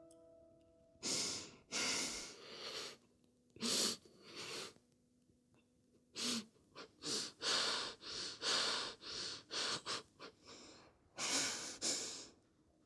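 People breathing hard and gasping in a string of short, sharp breaths, a few at first and then in quick succession from about six seconds in.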